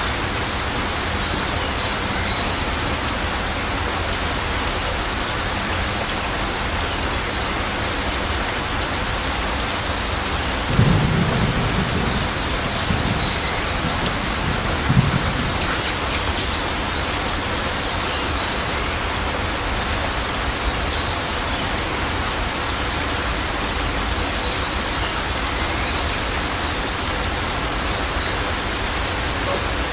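Steady rain falling, with a low roll of thunder about a third of the way in that ends in a sharper crack a few seconds later.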